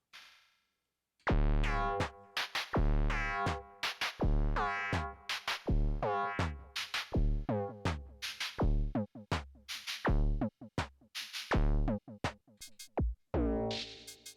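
Erica Synths Perkons drum machine playing a simple pattern of percussion-and-synth combination sounds from its factory kit 01. Each hit has a pitched, ringing tone over a deep bass thump. The pattern starts about a second in.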